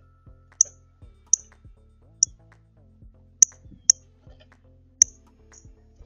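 Quiet background music under a series of sharp, short clicks, about six of them at irregular intervals.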